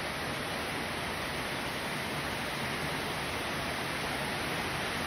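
Steady rush of heavy rain, with rainwater pouring in through a leak in a newly built kitchen and running down the tiled wall in a sheet.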